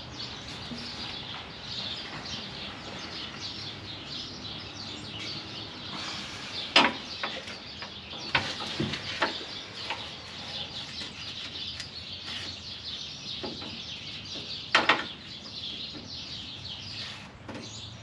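Small birds chirping busily and continuously, with a few sharp knocks in between, the loudest a quick double knock near the end.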